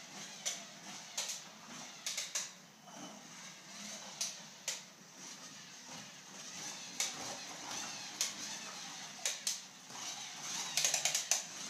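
Light taps and knocks on a hardwood floor at irregular moments, from a crawling baby's hands and the small toy truck he pushes along, with a quicker cluster of knocks near the end.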